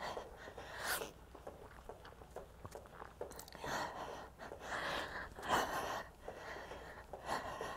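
A woman breathing hard from exertion, with short, faint, irregular exhales.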